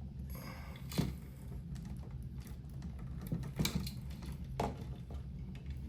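A few sharp clicks and taps from handling stiff electrical wire and a Wago lever connector during wiring, over a steady low hum.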